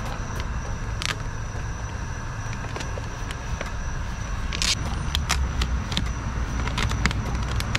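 Headlight tint vinyl film crinkling in a few short rustles, about a second in and again near five seconds, as it is stretched and smoothed over a car headlight by hand. A steady low rumble runs underneath.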